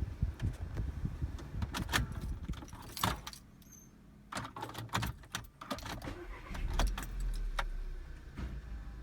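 2014 VW Passat: keys jangling and clicking, then about seven seconds in a low rumble comes in as the car starts up.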